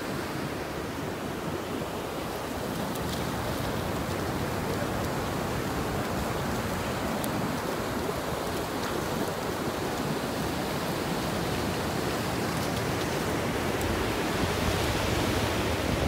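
Ocean surf breaking and washing up a sandy beach: a steady rush of waves that swells a little near the end.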